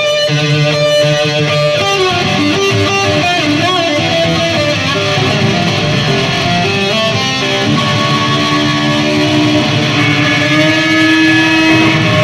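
Heavy metal band playing live, electric guitar to the fore over bass and drums.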